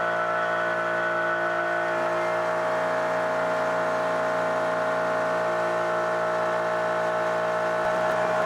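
CNC mill spindle driving a 4-flute carbide end mill through Damascus steel in an adaptive clearing roughing pass: a steady whine made of several held tones. Just before the end the sound starts to pulse in a regular beat.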